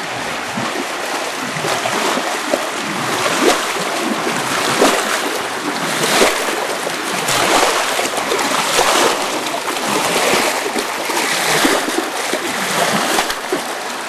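Water rushing along a coffee wet mill's concrete grading channel, with irregular splashes as a wooden pole is raked back and forth through the de-pulped coffee beans in the water.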